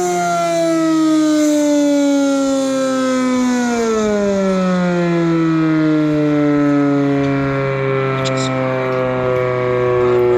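Sentry 10V outdoor warning siren winding down, its pitch falling slowly and steadily with a quicker drop about four seconds in.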